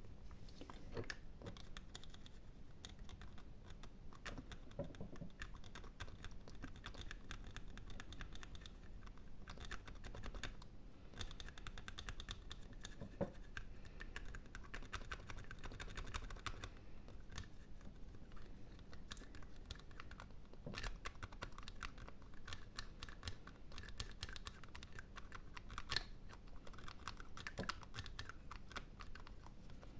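Close-miked ASMR scratching and gripping: fingernails and fingers working over an object, making fast, irregular clicks and scratches.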